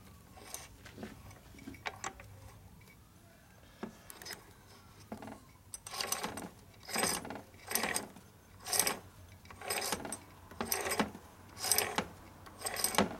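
1965 Harley-Davidson FL four-speed transmission turned over by hand at the mainshaft, its gearset clicking and rattling. There are a few faint clicks at first, then short bursts about once a second through the second half. The shaft turns with a lot of drag, which the mechanic puts down to tight seals rather than metal rubbing.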